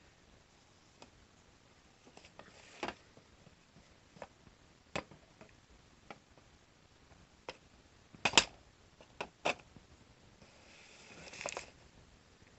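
Scattered light clicks and knocks from handling things on a shelf, the loudest pair about eight seconds in, then a brief rustle near the end.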